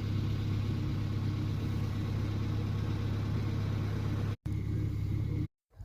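Vehicle engine running steadily, a low even drone. The sound cuts out abruptly twice near the end.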